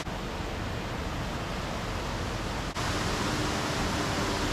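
Steady outdoor rushing noise with no clear events in it, briefly dipping about two-thirds of the way through.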